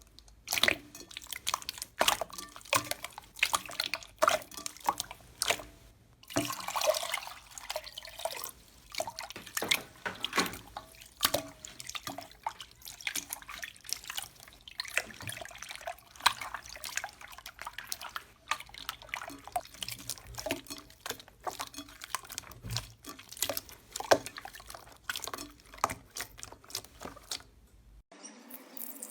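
Slime being squeezed and handled by hand: irregular wet clicks and pops, denser for a couple of seconds early on, changing abruptly near the end.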